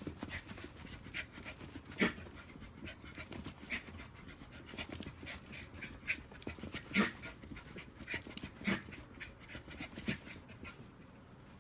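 A puppy panting as it scrambles about, with many short, sharp clicks and knocks scattered throughout; the loudest come about two seconds in and again around seven and nine seconds.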